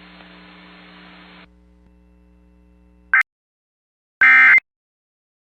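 Emergency Alert System end-of-message (EOM) SAME data bursts: short, harsh digital tone bursts about a second apart, which mark the end of an alert. Before them come a few seconds of faint hiss and hum and a very brief blip.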